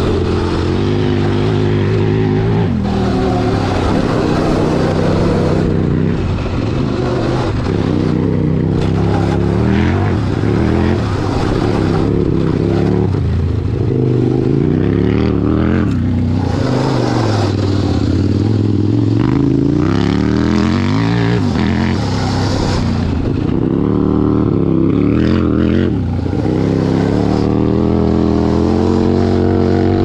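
Engine of a 100 HP modified Power Wheels 4x4 revving up and down over and over as it is driven hard, heard from close behind, under a constant rushing noise.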